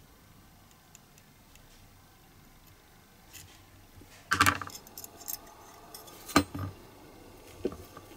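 Small metal hand tools clinking as a needle file is set down and side cutters are picked up. A sharp clatter comes about halfway through, another sharp knock about two seconds later, and a lighter click near the end.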